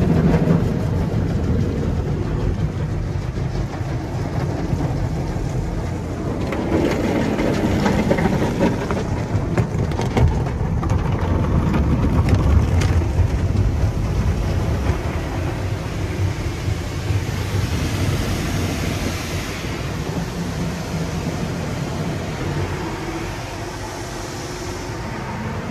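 Tunnel car wash heard from inside the car: cloth brushes scrubbing and slapping over the windows and body, then water spraying onto the windshield, over a steady low rumble. A hiss of spray comes up about three quarters of the way through.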